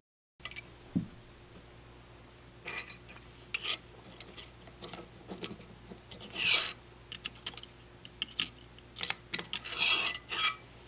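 A hard plastic RC crawler bumper and its small screws being worked with a hex driver and handled on a workbench: scattered clicks, scrapes and rubbing in short bursts, the longest near the middle and near the end.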